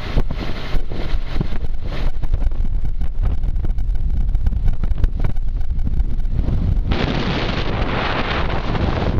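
Wind buffeting the microphone on the deck of a moving sailing yacht: an uneven, gusty rumble, joined by a louder rushing hiss about seven seconds in.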